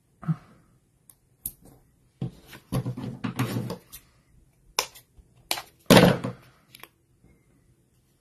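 Paper and cardstock pieces being handled on a cutting mat: irregular rustling and crinkling, with several short sharp taps. The longest rustle is a little after two seconds in, and the loudest burst comes about six seconds in.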